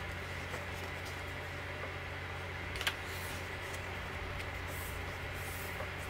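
A page of a large hardcover photobook being turned by hand: a sharp paper click about halfway through, then soft swishes of paper sliding. A steady low hum runs underneath.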